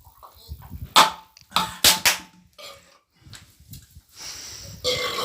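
A man burping after gulping carbonated soda: short, loud bursts about a second in and again around two seconds, then a longer, drawn-out burp near the end.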